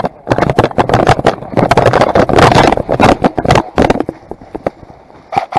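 Rapid, irregular rustling, scraping and knocking of an airsoft player moving off on foot: footsteps, brush and gear. It is densest and loudest for about the first four seconds, then thins out.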